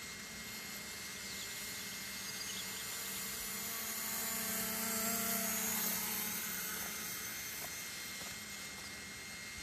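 Small multirotor drone's propellers whining at a steady pitch. The whine swells to its loudest about halfway through, then fades again.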